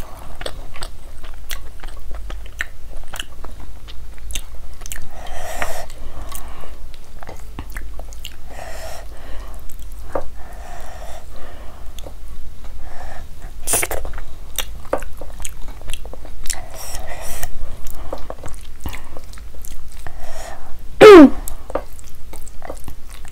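Close-miked wet chewing of soft rice and spinach curry, with frequent lip smacks and mouth clicks. Near the end, a short loud vocal sound slides down in pitch.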